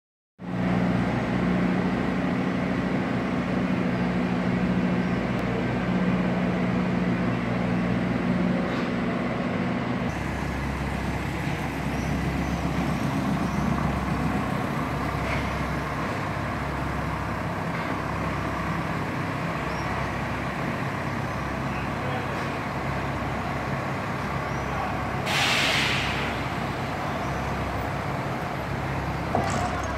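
Large truck-mounted mobile crane's diesel engine running steadily; the hum shifts deeper about ten seconds in. A short burst of hissing air comes near the end.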